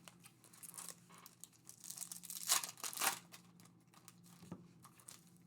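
Plastic wrapping of trading-card packaging being torn and crinkled, in scattered rustles with a couple of louder rips a few seconds in.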